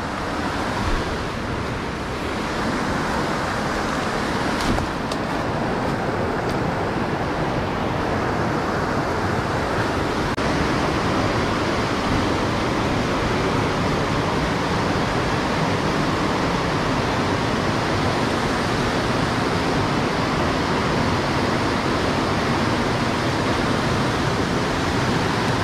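Steady rushing of whitewater river rapids pouring over boulders, growing a little louder over the first few seconds and then holding, with a few light knocks about five to seven seconds in.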